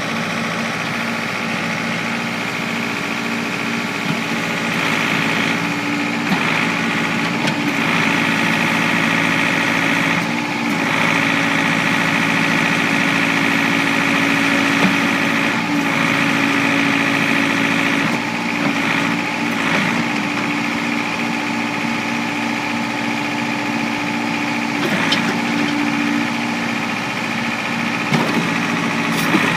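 Ford New Holland 555D backhoe's diesel engine running steadily, with a higher whine that swells and eases at times.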